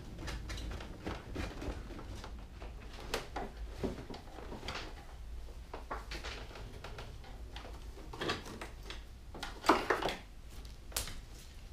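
Trailer wiring harness being pulled through a motorcycle's frame and body panels: scattered scraping, rustling and light plastic knocks, with a louder clatter near the end.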